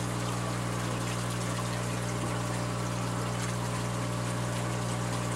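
Aquarium wet/dry filtration system running: a steady low pump hum under continuous rushing, splashing water.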